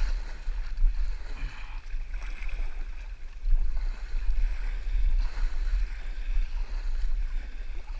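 Wind buffeting the kayak-mounted camera's microphone as a steady low rumble, over water running and rippling past a paddled kayak in shallow current.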